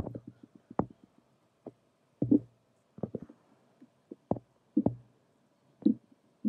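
A dozen or so short, soft knocks and clicks at irregular intervals, over a faint steady hum.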